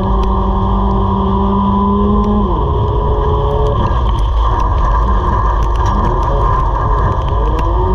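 Race car engine heard from inside the car at racing speed over a heavy road and wind rumble. The engine holds steady revs, drops off about two and a half seconds in as the driver lifts, then builds again near the end.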